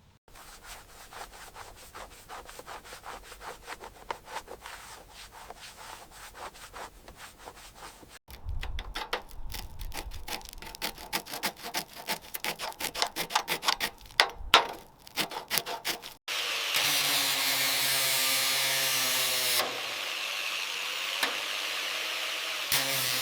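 Sanding strokes scraping rhythmically over car bodywork, growing louder about eight seconds in. About sixteen seconds in, a power tool starts and runs steadily with a hum, its pitch shifting a few seconds later.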